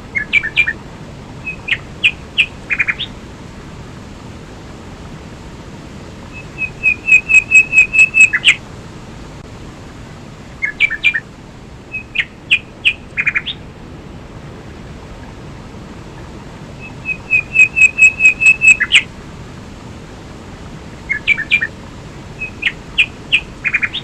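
A waterfall and stream rush steadily while a bird calls in short chirping phrases. Twice there is a quick run of about eight evenly spaced notes, and the same bird phrases repeat about every ten and a half seconds.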